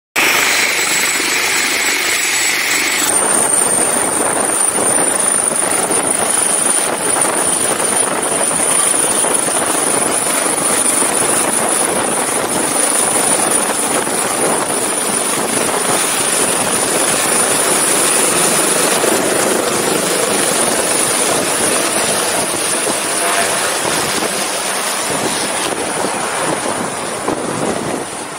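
Helicopter running at full power as it lifts off and climbs away: a steady loud rotor and turbine noise with a high, even engine whine that comes in about three seconds in, growing a little fainter near the end as it flies off.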